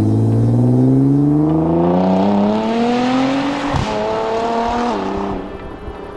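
Stage 5 tuned Nissan GT-R R35 (670 PS twin-turbo V6) accelerating hard: the revs climb steadily, drop at an upshift just under four seconds in, climb again briefly, then it lets off and the sound fades.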